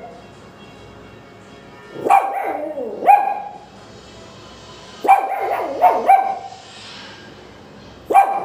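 Pomeranian barking in short high-pitched barks, grouped: two about two seconds in, three more around five to six seconds, and another starting near the end.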